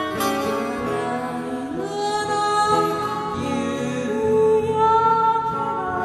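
A song: a voice sings long, held notes that slide slowly in pitch over instrumental accompaniment.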